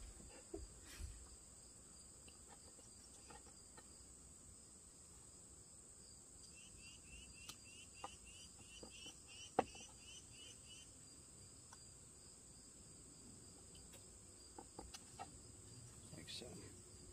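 Faint clicks and snicks of a carving knife cutting into a small wooden block, with the sharpest snap about ten seconds in. A steady high hiss runs underneath, and a run of about a dozen quick chirps comes about halfway.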